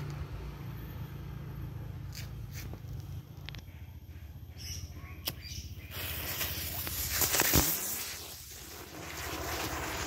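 A few faint clicks, then a small firework catches about six seconds in and hisses as it sprays sparks and smoke, swelling for about two seconds before fading to a softer hiss.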